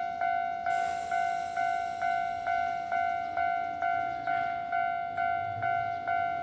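Japanese railway level-crossing warning bell ringing with an even, repeating ding about twice a second, which signals that a train is approaching and the crossing is closing.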